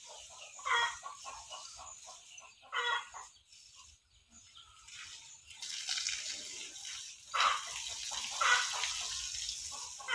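A hose spraying a jet of water over cattle, a steady hiss that starts about halfway through. Several short, loud calls come over it, and these are the loudest sounds.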